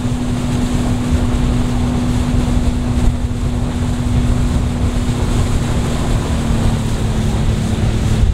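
Bass boat's outboard motor running steadily at speed, with wind buffeting the microphone; the engine's pitch drops slightly about six seconds in.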